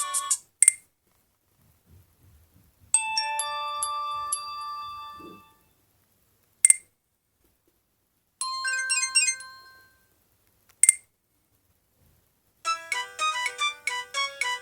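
Alcatel One Touch OT-810 mobile phone playing its built-in ringtones one after another as the list is stepped through. A tune cuts off right at the start, then a short melody ends on a held note fading out about five seconds in. Another brief melody plays around nine seconds, and a faster, busier tune starts near the end, with a short click before each new ringtone.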